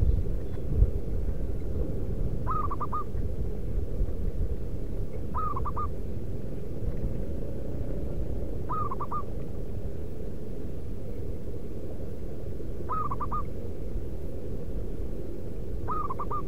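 Zebra dove cooing: five short calls a few seconds apart, each a quick run of three or four notes, over a steady low background rumble.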